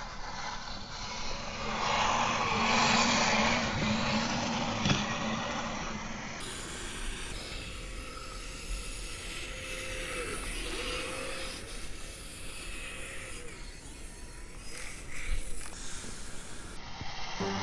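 Brushless electric motor of a Kyosho Blizzard RC snowcat running as it drives its tracks through deep snow: a steady whine over a rushing track-and-snow noise, the whine lower at first and higher in the middle, dipping briefly.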